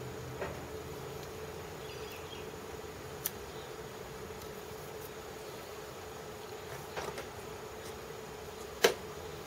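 Steady low electric hum in a workshop, with a few light clicks of small metal tools being handled and one sharper knock near the end.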